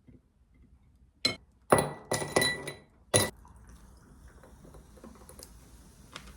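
About five sharp clinks of hard objects knocking together, each ringing briefly with a bright tone, starting about a second in. After them, a faint steady background noise.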